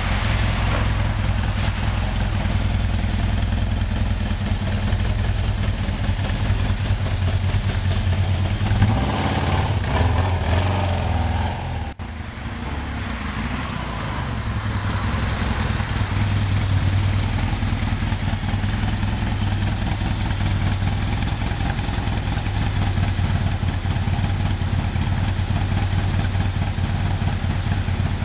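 Honda CBR1000F's inline-four engine running at a steady idle, then revving up about nine seconds in. The sound drops out abruptly at about twelve seconds and comes back with the engine running steadily, with a couple of small rises in revs.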